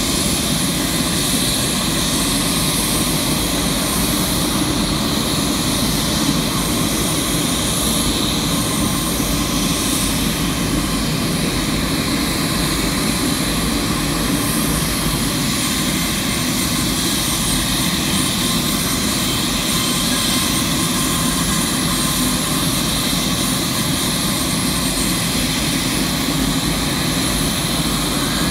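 C-130 Hercules turbine noise on the ground during start-up: a steady, loud roar with a thin high whine that stays level throughout.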